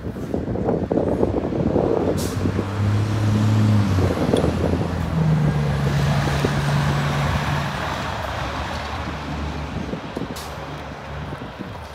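A road vehicle drives past with a low engine hum, growing loudest about four seconds in and then slowly fading; its engine note changes pitch about five seconds in.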